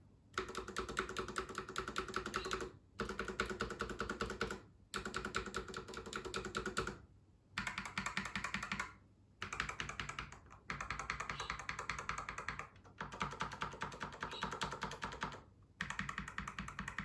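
ZENAIM low-profile gaming keyboard being typed on quickly: dense runs of key clicks in bursts of about two seconds, broken by short pauses.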